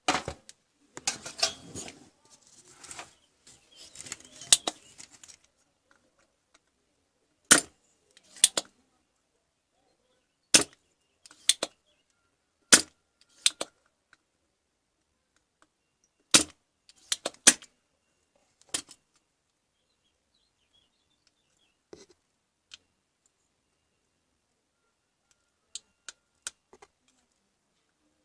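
Sharp single clicks and snaps, often in pairs and a second or two apart, after a few seconds of rustling and clatter at the start.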